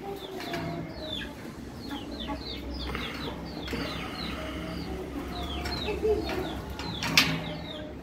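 Caged birds chirping, many short falling chirps several a second, with a sharp knock about seven seconds in.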